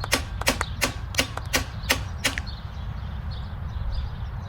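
Rapid hammer blows, about three a second, striking a Wheel Horse garden tractor's steering wheel to knock it loose from its shaft. The blows stop a little over two seconds in, leaving a steady low rumble.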